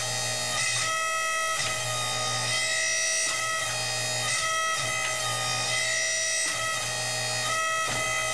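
Instrumental background music with a held low drone under steady sustained notes, breaking briefly about once a second.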